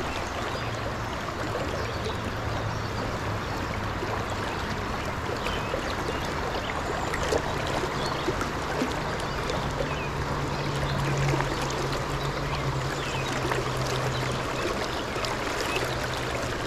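Fast, rocky trout stream rushing steadily, with a low hum underneath that rises slightly in pitch about halfway through.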